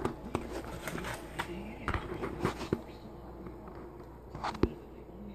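Handling noise from a handheld camera being swung around: a run of scattered clicks and knocks in the first three seconds, then one sharp knock near the end, over a steady low hum.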